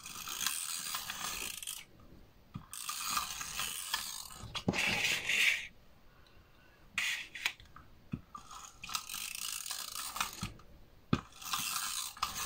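Paper and double-sided tape being handled at close range: irregular bursts of rustling and crackling as cardstock is folded, pressed and taped, with a few sharp taps.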